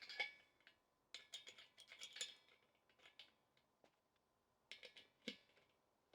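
Light metallic clicks and clinks from hand tools working an improvised nut-and-bolt nutsert setting tool. They come in three short bunches: one at the start, one about a second in, and one near the end.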